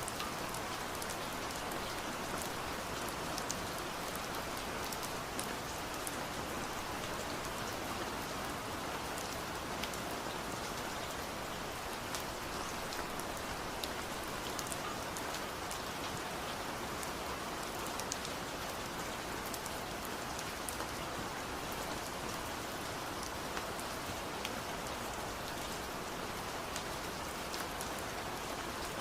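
Steady rain falling, an even hiss with many sharp little taps of individual drops scattered through it.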